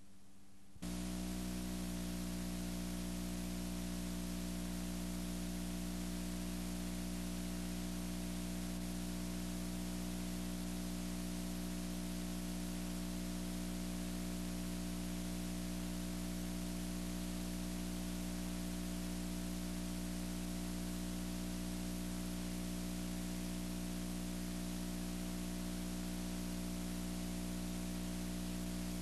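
Steady hiss with a low electrical hum, switching on abruptly about a second in and then holding unchanged: the noise of blank tape after the recording has ended.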